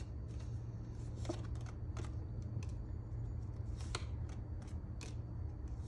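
Tarot cards being shuffled in the hand and drawn from the deck: scattered soft clicks and slaps of card on card, about one a second, over a steady low hum.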